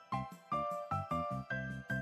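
Background music: a light tune of short melody notes changing pitch several times a second over a pulsing bass line.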